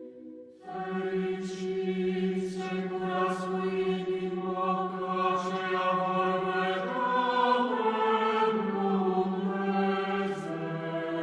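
Choir singing a slow chant: voices hold long notes over a low sustained drone, the melody moving step by step. It comes in after a brief lull about half a second in.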